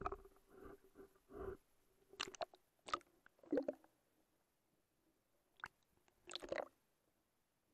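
Water sloshing and knocking against an action camera's sealed waterproof case as it is dipped under the surface, heard from inside the case: irregular short splashy bursts, the last ones near the end.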